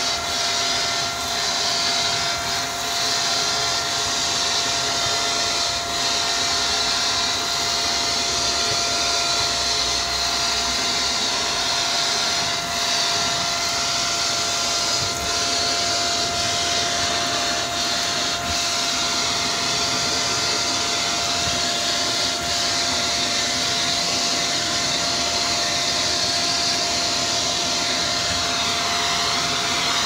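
Upright vacuum cleaner running steadily with a constant whine, its hose wand sucking up dust from a tile floor. A few faint clicks are heard along the way.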